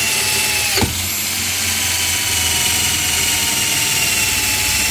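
WORKPRO 12V cordless drill on its second speed, driving a twist bit through a metal tube: a steady, high motor whine with a brief dip and click about a second in.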